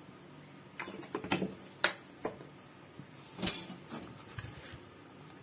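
Light clicks and knocks of kitchen items being handled, with one louder short clatter about three and a half seconds in.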